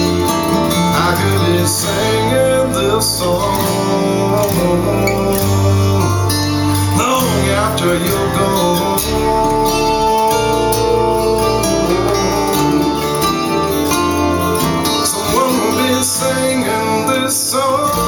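A guitar-led instrumental passage of a song played back through Bowers & Wilkins 604 S3 floor-standing loudspeakers and heard in the room.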